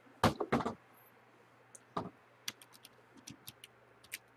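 Typing on a computer keyboard: a few firmer keystrokes near the start, then a run of quick, light key clicks through the second half, over a faint steady low hum.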